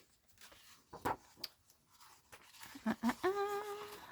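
Paper cutouts being handled and shuffled, with light rustles and taps, then a short hummed 'mmm' from a woman's voice near the end.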